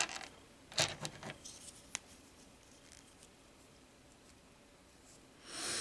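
A few small clicks and taps of plastic model-kit parts being handled and fitted together, mostly in the first two seconds with one sharp click about two seconds in, then near quiet and a soft hiss near the end.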